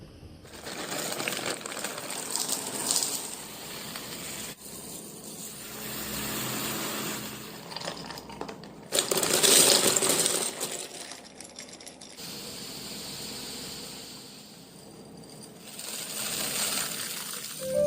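Small hard clinks and rattles mixed with rustling as pantry containers and packages are handled and set down, loudest for a stretch about halfway through.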